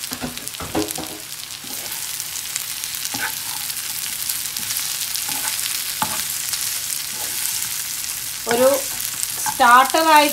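Masala-coated chicken wings sizzling in a frying pan with onions and curry leaves, a steady hiss, with a spatula scraping and turning them a few times.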